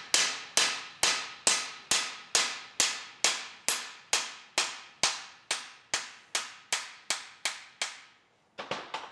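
Hammer blows on a cam bearing driver, knocking the front cam bearing out of a Willys F-head 134 engine block: about twenty evenly spaced, ringing metal strikes, a little over two a second, then a few quicker, lighter taps near the end.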